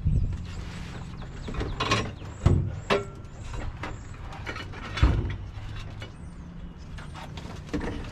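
Steel jack stands being handled and set in place: a few separate metal clanks and ratchet clicks, the loudest about two and a half and five seconds in, over a steady low hum.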